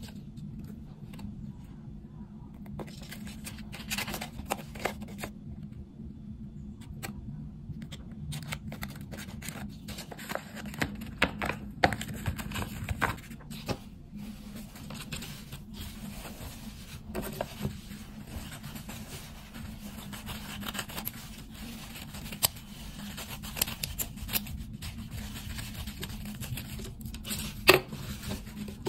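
Hands handling paper and tissue: rustling, creasing and tearing, with scattered sharp clicks and taps, over a steady low hum.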